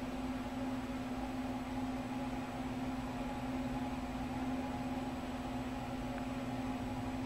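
Steady low mechanical hum with one constant low tone, unchanging throughout.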